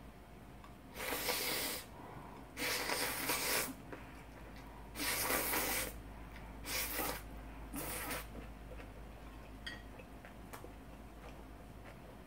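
A person slurping udon noodles: five loud, airy slurps in the first eight seconds, followed by a few faint clicks of chewing and chopsticks.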